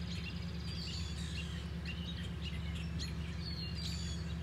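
Several small songbirds chirping and twittering in quick short notes, over a steady low hum.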